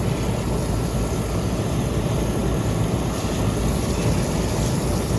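Air-conditioner outdoor condensing unit running: a steady rush of the condenser fan over a low hum.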